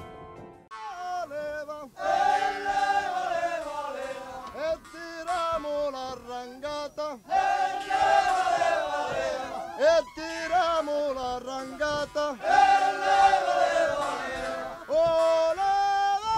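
Singing: a song of long, wavering sung phrases that rise and fall, starting about a second in.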